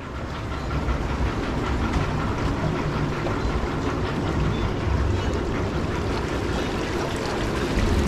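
Water rushing and churning in a log flume's channel as the boat floats along it, with a steady low rumble under the noise of the water.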